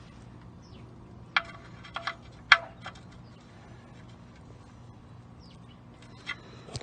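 A few sharp clicks and knocks in quick succession, about five within a second and a half near the middle, over a faint steady hum.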